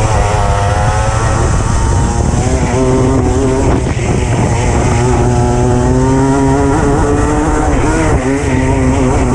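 Racing kart engine heard from onboard at race pace, its note climbing under throttle and dropping as the driver lifts off for corners, about 4 s and again about 8 s in, over constant chassis and wind rumble.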